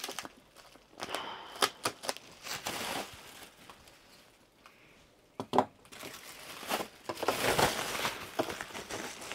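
Bubble wrap being pulled off and handled, the plastic crinkling and rustling in irregular bursts, with a quiet lull midway.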